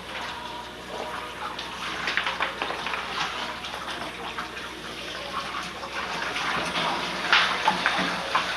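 Water running from a tap into a bathtub, with splashing and a few sharper splashes about seven seconds in.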